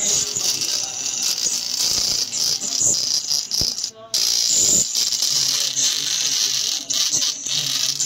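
Oppo smartphone's loudspeaker playing audio with a cracked, rattling buzz, heavy in the treble, with a brief dropout about four seconds in. The distortion appeared after the phone's middle frame was replaced, and the technician traces it to the thin adhesive tape missing from under the speaker.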